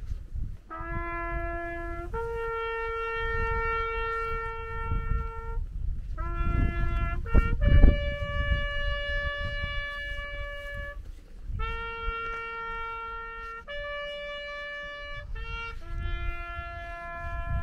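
Solo trumpet playing a slow military call for the fallen: long held notes stepping among a few tones of one chord, some notes short and some held for several seconds. A low wind rumble on the microphone runs underneath, with a loud bump about eight seconds in.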